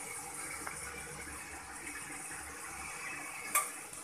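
Chicken pieces with spices cooking in oil in a steel pot: a steady sizzling hiss, with one sharp clink about three and a half seconds in.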